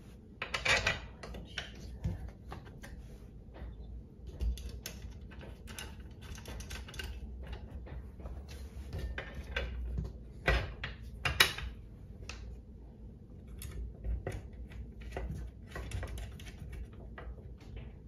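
Metal garage door bracket knocking, clinking and scraping against the fibreglass door panel as it is pushed and worked into place behind the top cross bar. The sounds are irregular, with a few sharper knocks near the start and about two-thirds of the way through.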